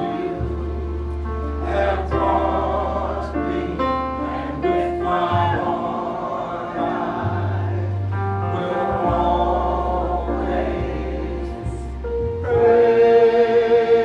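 Gospel worship song: voices singing together over long held bass notes that change every few seconds.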